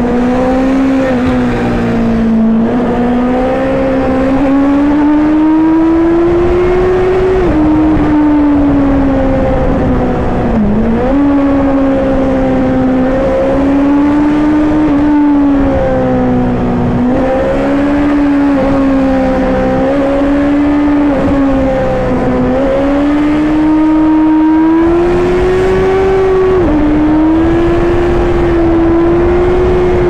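Honda CB650R's inline-four engine pulling hard, its pitch rising and falling as the throttle is worked through the bends. There are sharp drops in pitch at upshifts about 7 and 27 seconds in, over steady wind rush.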